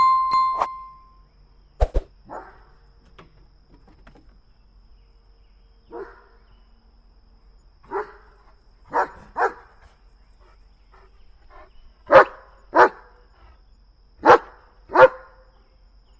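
German Shepherd barking in short, spaced-out barks: single barks at first, then quick pairs, the last pairs the loudest. A short steady tone sounds at the very start.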